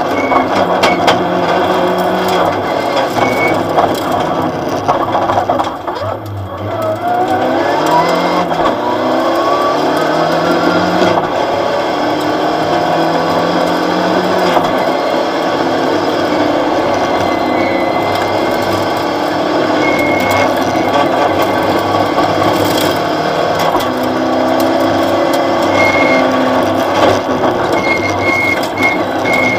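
Opel Astra OPC rally car at full stage pace, heard from inside the caged cabin: the engine revs hard up through the gears with quick shifts. It eases off briefly about six seconds in, then pulls up again, over constant clatter and rattling from the car and road.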